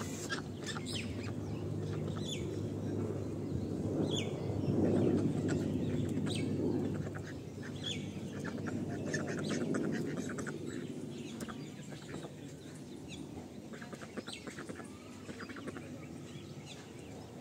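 Domestic fowl, a chicken and ducks, clucking and calling low, with many short high chirps scattered through.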